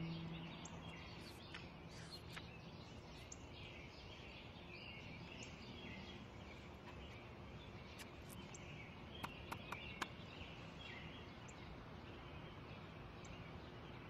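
Faint garden ambience with small birds chirping on and off throughout. A low sustained musical note fades out in the first second or two, and a few light clicks come about nine to ten seconds in.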